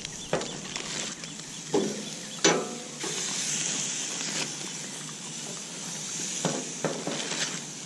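Marinated chicken wings sizzling on hot gas-grill grates as their fat melts, with a steady hiss. Several short clinks of metal tongs on the grate come through as more wings are laid on.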